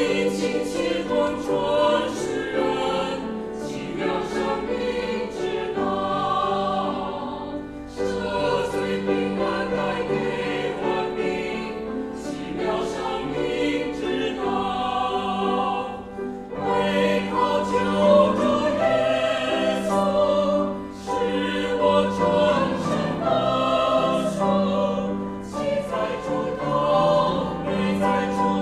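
Mixed choir of men's and women's voices singing a hymn.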